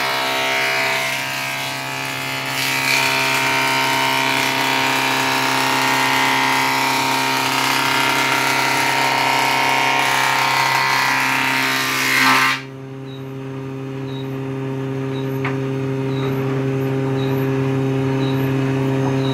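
Woodworking jointer-planer running with its motor humming steadily while a board is fed over the cutterhead, a loud cutting noise over the hum. About twelve seconds in the cutting stops and the machine runs free, only its motor hum left.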